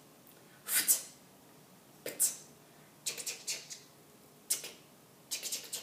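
A series of about five short swishing, scratchy sound effects spaced a second or so apart, each marking a stroke of an uppercase E being written.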